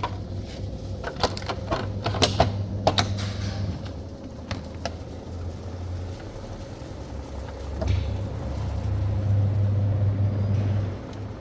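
Samsung 9 kg top-loading washing machine running a spin-only test, its motor humming, easing off midway, picking up again and stopping near the end; the machine is working normally on its repaired control board. A few sharp clicks come in the first three seconds.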